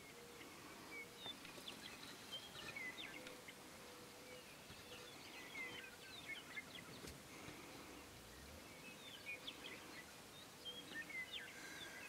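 Faint scattered chirps and short gliding whistles of small songbirds over quiet open-field ambience, with a faint steady hum underneath.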